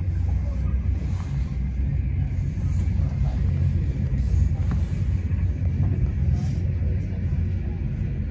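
Passenger train running at speed, heard from inside the carriage as a steady low rumble with a few brief rushes of hiss.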